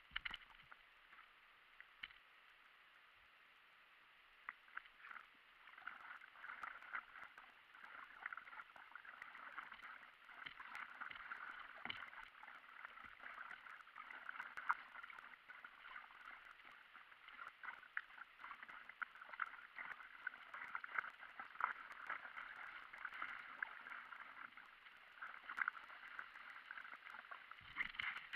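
Paddle strokes and water splashing around an inflatable stand-up paddleboard on a river. The playback is sped up eightfold, so the splashes run together into a faint, dense crackle. It is sparse for the first few seconds, busier from about six seconds in, with louder splashes near the end.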